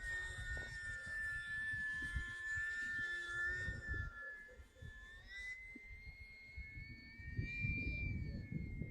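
E-flite UMX Timber X's small electric motor and propeller whining in flight. The pitch holds steady, then rises from about five seconds in. Gusty wind rumbles on the microphone throughout and grows heavier near the end.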